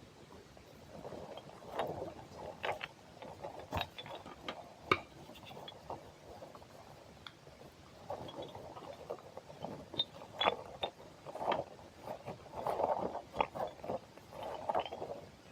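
Close-miked ASMR handling sounds: irregular soft squishes with many small sticky clicks and pops, in uneven clusters.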